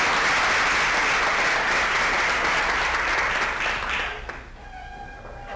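Audience applauding, steady and then dying away about four seconds in.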